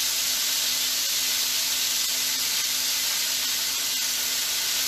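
Coated shrimp frying in hot grease: a steady sizzle, with a faint steady hum underneath.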